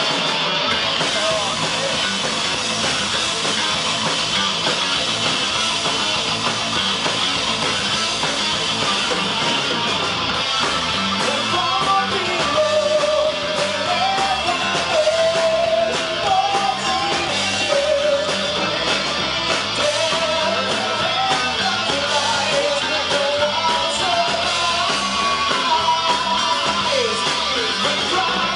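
Heavy metal band playing live, loud, with electric guitars, bass, drums and singing; a wavering lead melody rises over the band about halfway through.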